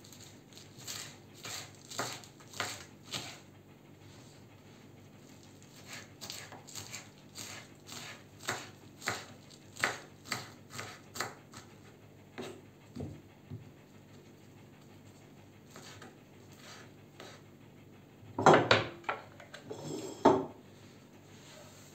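Kitchen knife chopping mini lettuce on a wooden cutting board, a quick steady run of chops that thins out to scattered cuts after about twelve seconds. Near the end come a few louder knocks and scrapes.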